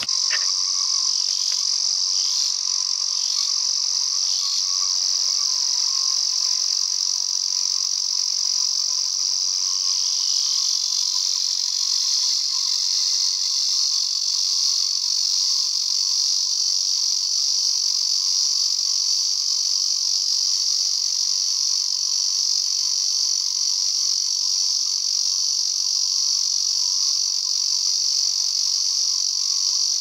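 Male Ezo cicada (Lyristes japonicus) singing: one continuous, steady, high-pitched buzzing drone that does not break.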